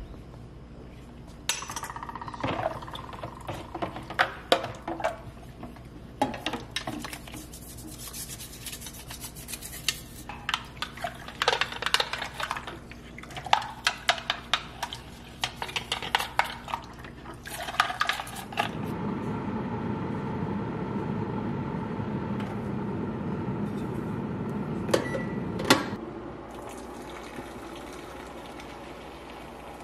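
Small metal piece clinking and knocking against a plastic bowl as it is washed and scrubbed with a brush in water, with splashes. About 18 seconds in, a steady stream of water runs or pours for several seconds, with a couple of sharp knocks near its end.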